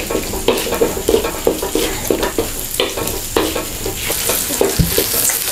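Wooden spatula scraping and stirring sausage pieces around a wok, the food sizzling in hot oil, with irregular scraping strokes a few times a second. A dull low bump comes near the end.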